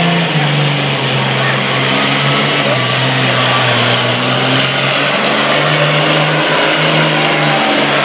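Diesel pulling tractor's engine running hard at full throttle as it drags a weight sled down the track, its pitch rising and dropping in steps as the load changes.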